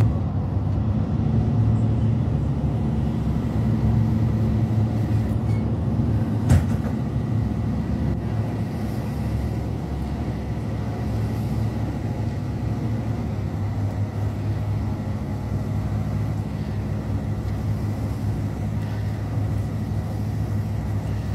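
Passenger river boat's engines running with a steady low drone, heard from inside the cabin while under way. A single sharp click sounds about six and a half seconds in.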